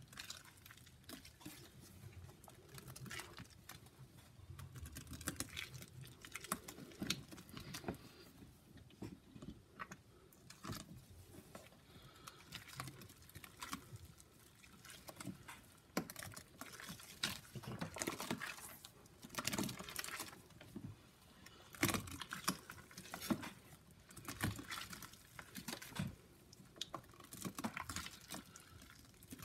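Gloved hands squeezing and kneading thick wet paste of crumbled Comet cleanser and Pine-Sol, making a dense run of small, irregular wet crackles and squishing clicks.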